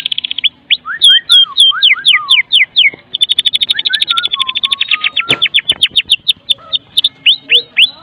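White-rumped shama (murai batu) singing its rattling 'kretekan' call: fast trains of short, dry rattling notes alternating with runs of sharp downslurred whistles, about four a second.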